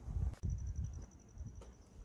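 An insect trilling: a fast, even, high-pitched pulsing buzz that starts about half a second in. Under it are low rumbling thumps, loudest at the start.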